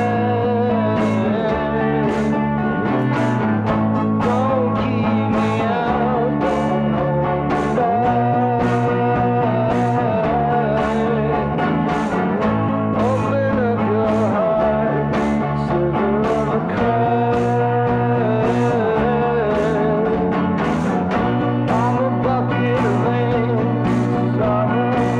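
Rock song with a steady beat, held bass notes that change every couple of seconds, and a sliding melody line above them.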